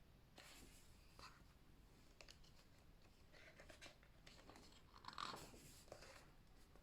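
Near silence with a few faint paper rustles and crackles from photobook pages being handled and turned, the clearest about five seconds in.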